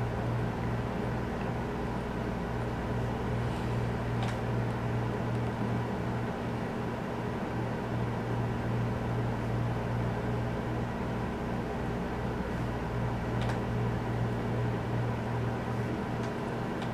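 Steady low hum from a motor or electrical appliance, with a couple of faint ticks partway through.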